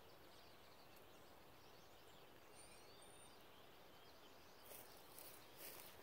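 Near silence: quiet outdoor air, with a few faint, distant bird chirps about halfway through and a few soft scuffing noises near the end.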